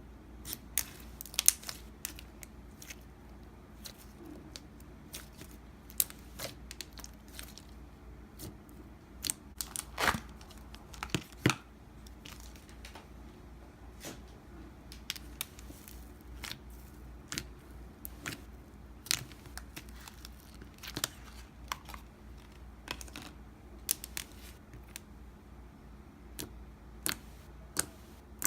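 Slime being squished, stretched and poked by hand, making irregular sticky pops, clicks and crackles.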